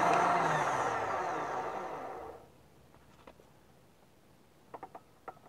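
Electric drill spinning a wooden knife handle clamped in its chuck, its motor winding down with falling pitch after the trigger is released and stopping about two seconds in. A few light clicks follow near the end.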